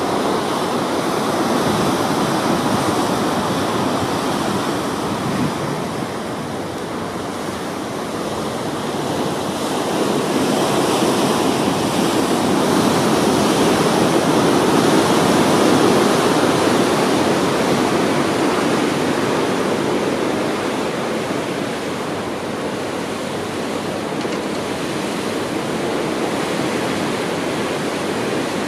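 Rushing, churning water of a ship's wake foaming along the hull in rough sea: a steady rush that swells louder through the middle and eases again.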